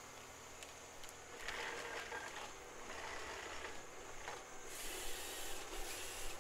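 Forestry machine working, a low engine rumble under intermittent hissing that swells about a second and a half in and again, loudest, near the end.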